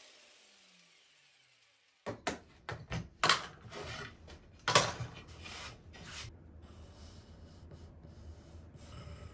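A jigsaw's motor winds down and fades away. About two seconds in come several sharp clicks and knocks of plastic trigger bar clamps being released and set down on a pine board, followed by hands and a fingertip rubbing along the board's freshly jigsaw-cut edge.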